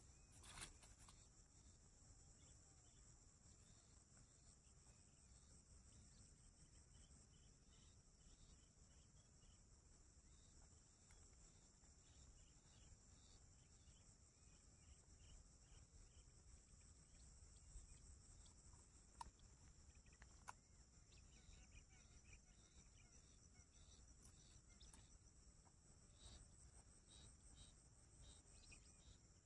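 Faint, steady high-pitched drone of insects, with a few soft clicks and rustles from close by.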